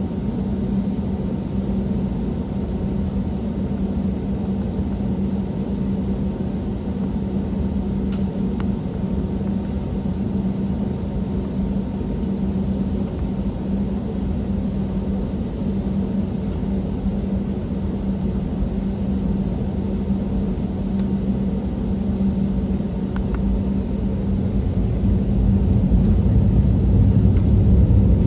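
Airbus A320neo engines running at idle, heard inside the passenger cabin as a steady low hum. The engines get louder over the last few seconds as thrust comes up for the takeoff roll.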